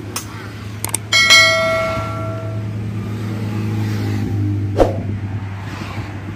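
Subscribe-button sound effect: mouse clicks at the start, then a bell ding about a second in that rings out for about a second and a half. A steady low hum runs underneath.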